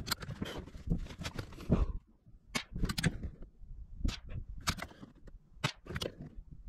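Several shots from a CZ 452 bolt-action rifle in .22 WMR, fired a second or two apart, with sharp clicks in between.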